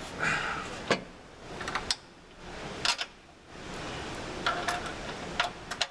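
Metal bolts being dropped into the bracket holes of a tyre-changer assist arm: several sharp, separate metallic clicks and clinks a second or so apart.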